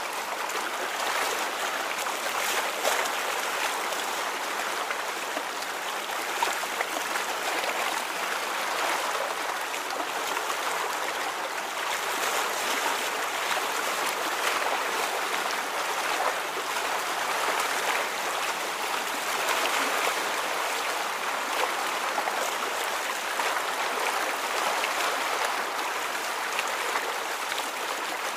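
Steady rushing of moving water, like a stream, with small trickles and light splashing clicks scattered through it.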